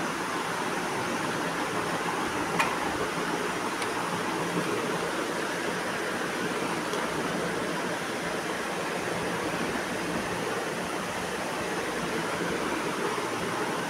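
Steady rushing background noise with no clear pitch, broken by one sharp click a little over two seconds in and a few faint ticks after it.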